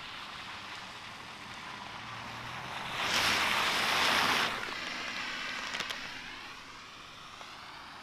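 A car driving past on a snow-covered road, its tyres hissing through the snow. The sound builds, is loudest from about three to four and a half seconds in, then fades as the car moves away.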